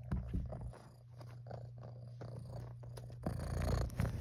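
Domestic cat purring: a steady low rumble, with louder rustling and handling noise from about three seconds in.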